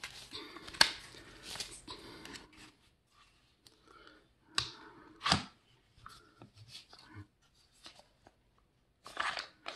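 Scattered clicks and knocks from a Glock pistol and its polymer CAA Roni conversion kit being handled. The sharpest knocks come about a second in and twice around five seconds in, with faint rustling between them.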